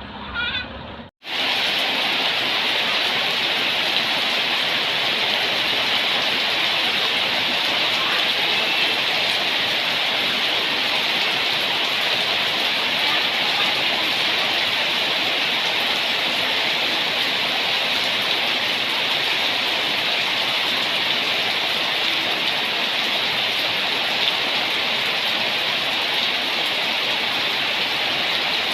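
Steady, even hiss of heavy rain falling, starting abruptly about a second in after a brief moment of silence.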